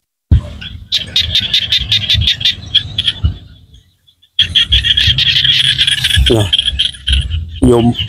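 A chorus of small frogs calling, heard as rapid, evenly pulsed calls with wind rumbling on the microphone. The sound drops out briefly about four seconds in and comes back as a denser chorus, and a man's voice begins near the end.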